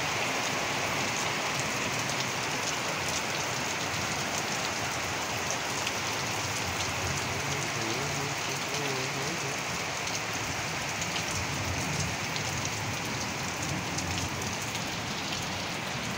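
Heavy rain falling steadily: a dense even hiss full of many small individual drop hits.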